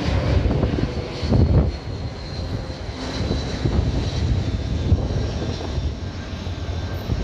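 Airbus A321 airliner's jet engines passing overhead on landing approach with gear down: a steady low rumble with a thin high whine riding over it.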